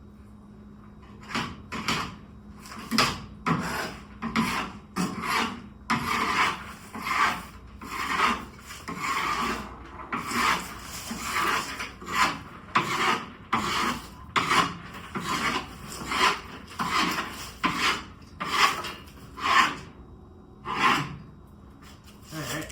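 Rough scraping strokes repeating about one or two times a second, a tool scraping leftover wet soybeans out of a combine.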